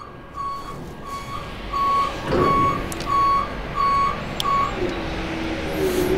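Haulotte HS 15 E scissor lift's motion warning alarm beeping about twice a second, stopping about four and a half seconds in. A machine hum then starts up and rises in pitch as the lift begins to move.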